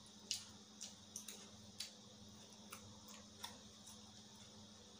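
Faint mouth clicks and lip smacks of chewing, about six short irregular ticks over near silence.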